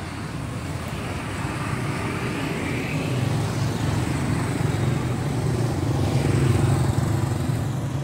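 Road traffic with motorbikes passing, growing louder to a peak about six and a half seconds in, then easing off.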